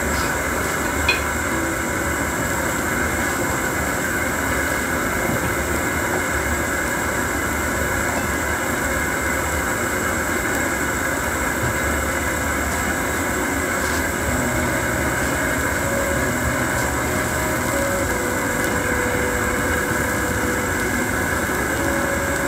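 Propane camp-stove burner running with a steady rushing noise under a pan of simmering soup, with one light click about a second in.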